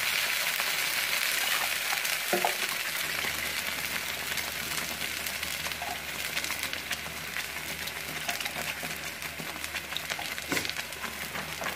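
Ennai kathirikai gravy sizzling and crackling in a frying pan, with stuffed brinjals frying in oil just after masala water has been poured in. The sizzle slowly dies down as the added liquid heats.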